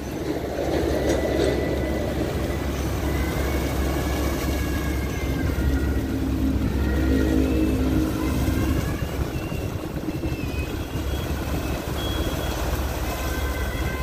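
Sany concrete mixer truck running, its diesel engine idling while the turning drum empties rinse water down the chute, splashing onto the wet ground. The engine's hum strengthens a little in the middle.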